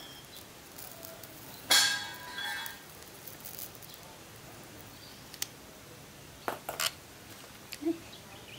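Hard objects clinking: one loud clink with a short ringing tail about two seconds in, then a few light taps and clicks later on.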